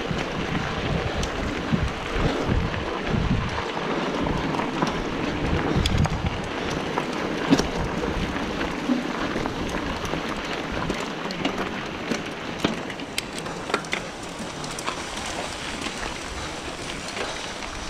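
Riding noise from a mountain bike on a dirt trail: wind rumbling on the microphone, heaviest in the first several seconds, over the rolling of tyres, with scattered sharp clicks and rattles from the bikes.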